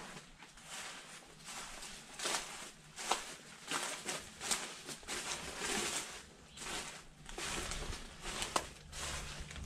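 Footsteps crunching and rustling through dry corn stalk bedding, with uneven crunches a little more than once a second.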